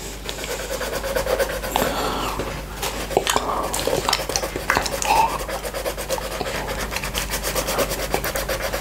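Tongue licking honey off a small glass plate, close-miked wet mouth sounds, over the quick, even scratching strokes of a coloured pencil shading on paper; the strokes come faster and closer together in the second half.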